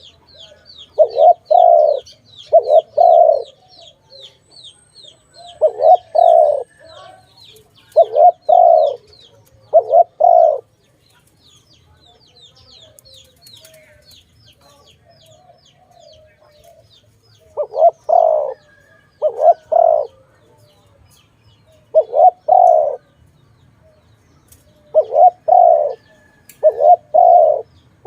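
Spotted dove cooing in repeated phrases of two or three low notes, with a pause of several seconds midway. Behind it, a smaller bird gives fast runs of high, thin chirps.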